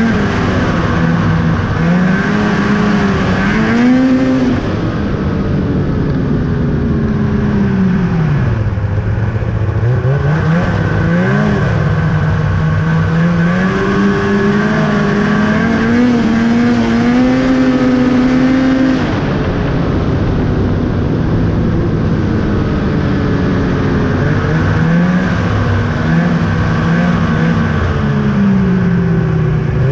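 2000 Ski-Doo Summit 800 snowmobile's two-stroke twin engine running under way, its pitch rising and falling with the throttle. It dips low about eight seconds in, climbs again, rises steadily for several seconds past the middle, then drops back.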